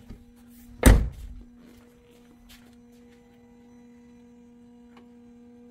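A single loud thunk about a second in, then a faint steady electrical hum from the car with the ignition switched on.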